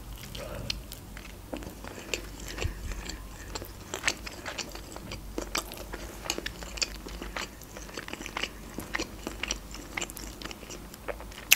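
Close-miked mouth chewing a fried crepe (blin), with many small wet clicks and smacks at an irregular pace.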